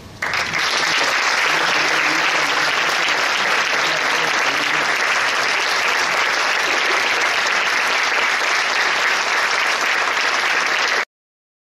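Audience applauding: steady, dense clapping that cuts off suddenly near the end.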